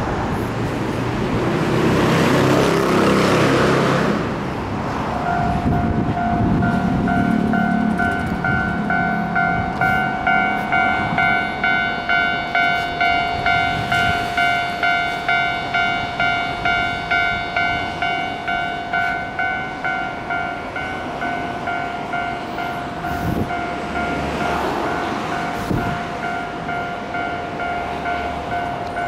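A vehicle rushes past in the first few seconds. Then, about five seconds in, a Japanese level-crossing warning bell starts ringing: an electronic two-tone clang repeating about three times every two seconds and carrying on steadily.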